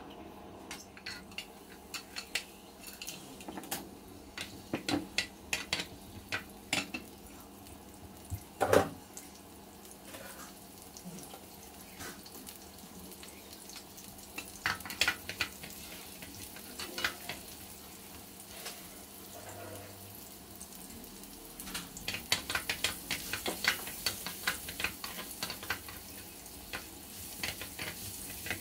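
Minced garlic frying in oil in a round ridged grill pan, with scattered clicks and knocks of utensils on the pan and one louder knock about nine seconds in. Near the end a wooden spatula stirs and taps the garlic in quick clicks over a sizzle.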